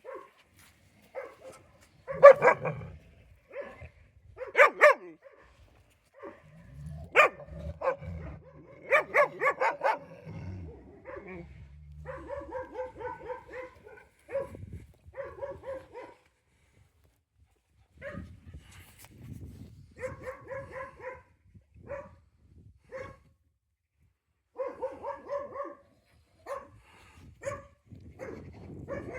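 Dogs barking in short, scattered bursts, some single barks and some quick runs of repeated higher barks.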